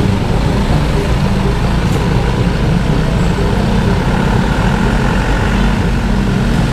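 Motorbike engine running at low speed in slow, heavy road traffic, with the steady drone of other vehicles around it.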